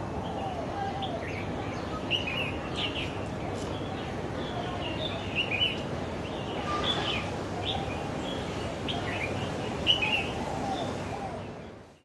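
Chinese (light-vented) bulbul calling: repeated short, sharp chirps and brief warbled phrases, over steady low background noise. The sound fades out near the end.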